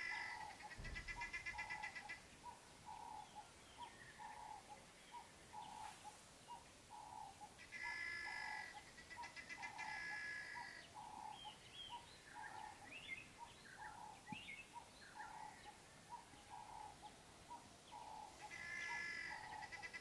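Faint dawn animal and bird calls on open savanna: a steady note repeating about twice a second, a louder wavering, bleat-like call in two parts about every ten seconds, and a few short chirps in between.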